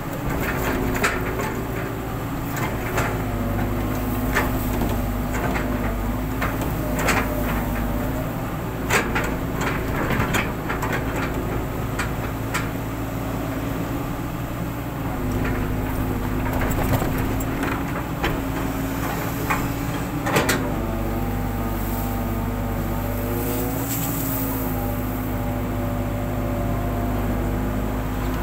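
Hitachi long-reach excavator's diesel engine running steadily under hydraulic load, its pitch shifting slightly as the arm works. Repeated metallic clanks and knocks come from the bucket and boom linkage as it digs and dumps, with one sharp knock about twenty seconds in.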